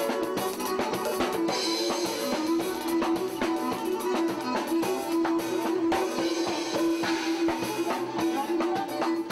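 Live band music, instrumental: lyra with electric bass, keyboards and drum kit.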